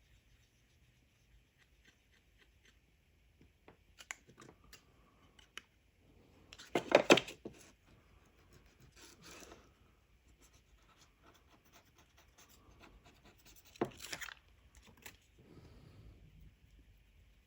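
Hands handling small parts at a workbench: scattered light clicks and scrapes, with two louder brief scraping rustles about seven and fourteen seconds in.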